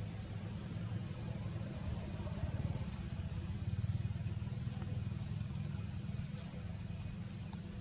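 A motor engine running steadily, a low rumble that grows a little louder in the middle.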